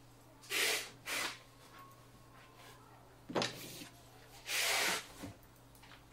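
Handling noises from the microscope stand and its parts: two short rustles or scrapes near the start, a light knock a little past three seconds, and a longer rustle near the end, followed by a small tap.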